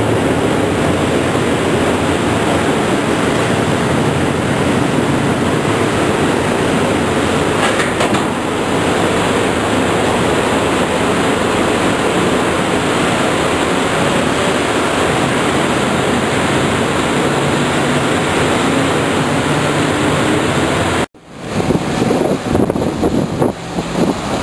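Landing catamaran under way: a steady, loud rumble and rush from its engines and water, heard from the vehicle deck. It cuts off suddenly near the end and gives way to gusty wind on the microphone.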